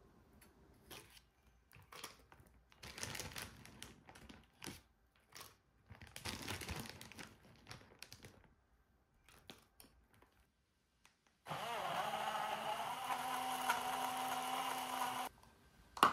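Fruit clicking and rustling into a Ninja personal blender cup, then the blender motor runs steadily for about four seconds, blending apple pieces and frozen blackberries into a smoothie. A sharp knock comes right at the end.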